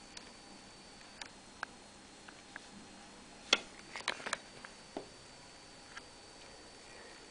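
Scattered faint small clicks and ticks, one every second or so, with a louder quick cluster of clicks about three and a half to four and a half seconds in, over a faint steady high-pitched whine.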